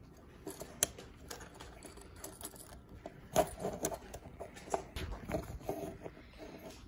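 Small plastic ink-pump parts and tubing being handled on a wooden table: scattered clicks, taps and rustles, the sharpest knock about three and a half seconds in.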